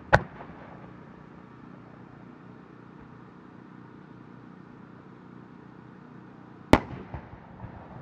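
A single large Japanese round aerial firework shell (warimono). A sharp thump from the mortar launch comes just after the start. About six and a half seconds later the shell bursts with a loud bang, followed by a few trailing echoes.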